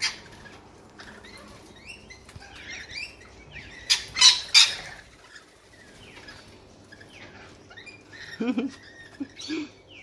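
A flock of rainbow lorikeets chattering and screeching as they feed and squabble. A cluster of loud, shrill screeches comes about four seconds in, and another burst of calls near the end.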